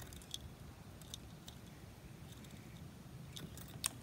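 Faint clicks and ticks of monofilament fishing line being handled and drawn through a half hitch by hand, over a steady low background rumble; a sharper click near the end.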